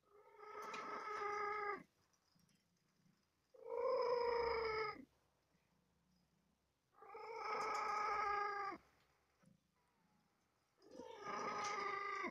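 A cat gives four long, drawn-out meows, evenly spaced about two seconds apart, each holding a fairly steady pitch.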